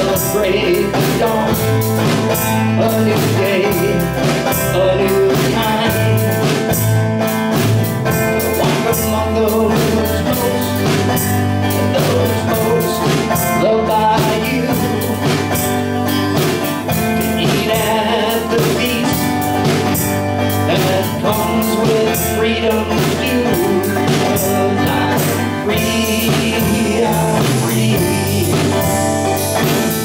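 A small band playing live, blues-leaning: an acoustic guitar strummed, a double bass played with a bow, and a Slingerland drum kit keeping a steady beat under a man singing.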